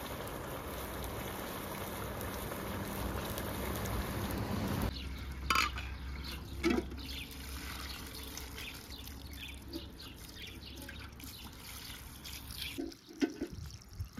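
Water running or being poured, cutting off suddenly about five seconds in; then a quieter stretch with a couple of short knocks.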